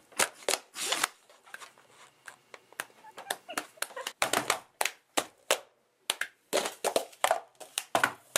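Hand claps, disposable cups rapped and set down on a wooden table, and palms slapping the tabletop in the quick rhythm of a cup-and-clap game: sharp taps several a second, with a brief pause about two-thirds through.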